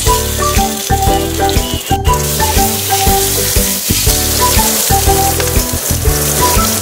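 Aubergine halves sizzling as they fry in oil in a pot, a steady hiss, with background music playing a melody of held notes.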